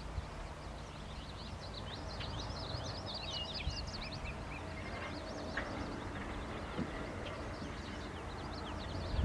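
Several songbirds chirping and twittering in quick, short high notes, over a low steady rumble.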